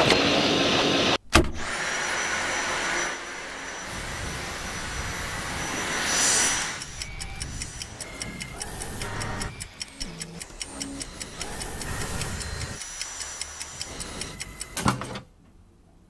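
Dyson V8 cordless stick vacuum running, loudest in the first second, cut off briefly, then continuing more quietly. From about seven seconds in a steady light ticking runs along with it, and the sound cuts off near the end.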